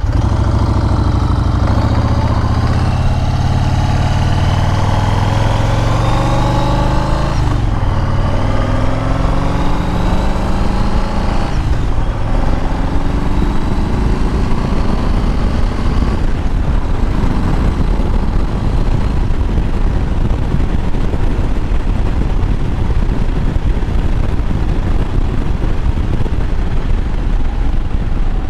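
Motorcycle engine and exhaust, warmed up, accelerating: the pitch climbs, drops at a gear change about seven seconds in, climbs again and drops at a second change about twelve seconds in. It then settles into steady cruising with wind rushing over the microphone.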